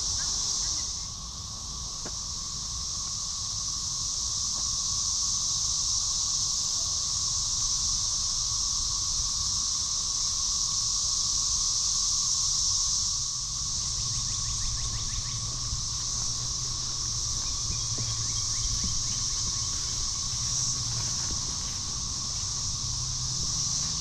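Chorus of Brood XIX 13-year periodic cicadas in the trees: a steady, unbroken high-pitched drone with a thinner steady tone beneath it. A low hum joins in about halfway through.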